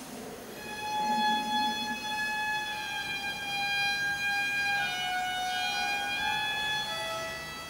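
Sustained, steady musical tones: several long held notes overlapping, each shifting to a new pitch in steps, with no wavering.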